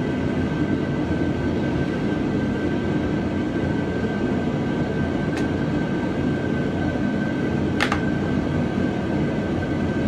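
A machine running steadily: a dense rumble with a constant high whine, broken by two short clicks about five and eight seconds in.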